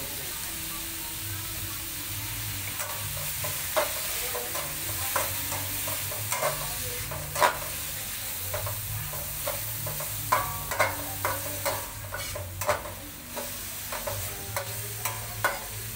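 Cauliflower and beef liver stir-frying in a pan, sizzling steadily, with irregular clinks and scrapes of a spatula stirring them. The sharpest knock comes about halfway through.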